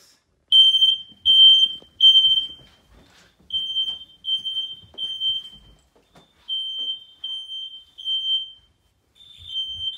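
Kidde smoke alarm's piezo horn sounding in alarm in the temporal-three pattern: high-pitched beeps in groups of three with a pause between groups, three full groups and the start of a fourth, the first group louder. It is the only detector in the house still sounding; the others are broken.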